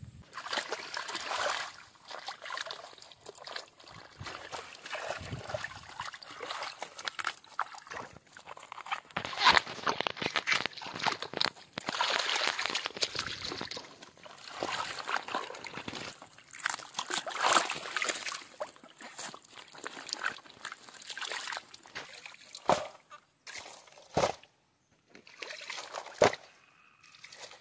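Water sloshing and splashing in uneven swells as hands rub and rinse the muddy roots of freshly dug water taro. A few sharp knocks come near the end.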